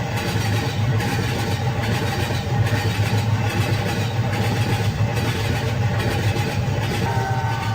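Freight train running: a steady, loud low rumble, with faint high tones joining near the end.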